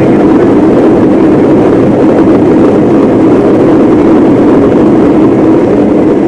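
Airbus A321's CFM56-5B turbofan engines in reverse thrust during the landing rollout: a loud, steady roar heard from inside the cabin.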